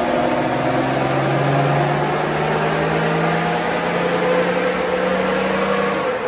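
Toyota 1HD-FTE straight-six turbo-diesel in a LandCruiser, pulling under full load on a chassis dyno, with its pitch climbing steadily as the revs rise. Near the end the pitch drops as the run eases off. A steady rush comes from the tyres spinning on the dyno rollers.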